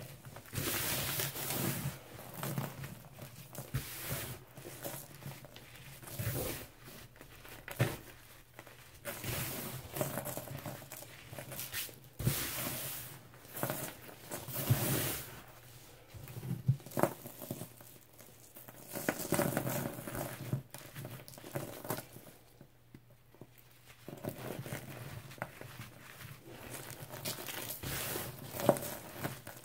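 Hands squeezing, crumbling and sifting a dry lemon-scented cleaning powder of crushed baking soda, Comet and chalk, giving soft crunching and pouring rustles that come and go in irregular handfuls. A short, nearly quiet pause falls about three-quarters of the way through.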